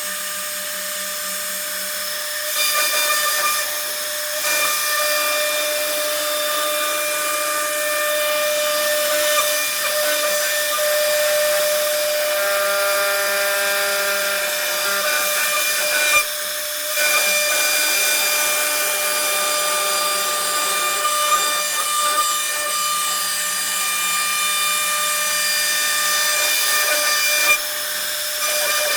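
CNC router spindle running and cutting a profile, a steady high whine with a hiss of cutting that dips briefly about halfway through.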